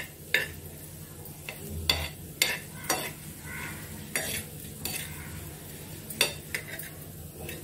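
Steel spoon stirring and scraping coriander seeds across a hot flat iron tawa as they roast, the seeds rattling and shifting with each stroke. The scrapes come irregularly, about one every half second to second, over a steady low hum.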